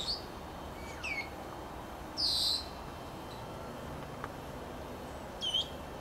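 Senegal parrot calling: a few short whistled notes that slide down in pitch, one at the start, one about a second in and a doubled one near the end, with a louder, harsher screech at about two seconds.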